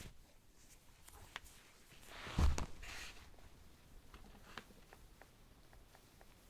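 A young woman's soft, muffled hiccup about two and a half seconds in, among a few faint ticks.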